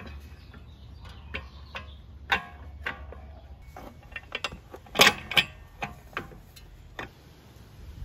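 Irregular metal clicks and clinks of hand tools and loose nuts and bolts being handled, loudest as two sharp clinks about five seconds in, over a steady low hum.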